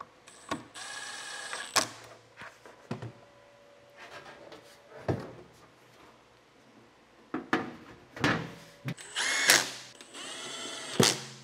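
Cordless impact driver running in short spurts, driving screws into a battery's sheet-metal casing: one spurt about a second in and two back to back near the end. Sharp knocks between them as the metal lid panel is handled and set in place.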